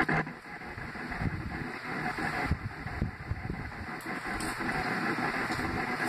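A steady rumbling hiss with irregular low thumps, just after a louder, choppy sound cuts off at the very start.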